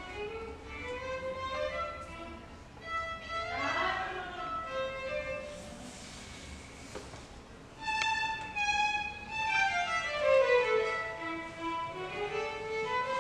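Violin playing a slow melody of held notes with slides between pitches, then a falling run of notes about ten seconds in that climbs back up.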